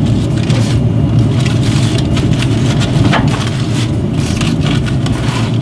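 Aluminium foil crinkling and crackling as a foil-wrapped rack of pork ribs is pulled open on a grill grate, over a steady low rumble.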